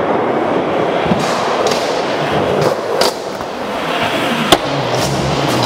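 Skateboard wheels rolling and rumbling on wooden ramps, with several sharp clacks of the board hitting the ramp. The sharpest clack comes a little before the end.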